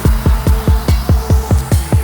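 Electronic dance music with a fast, driving kick-drum beat, about eight hits a second, over sustained synth tones.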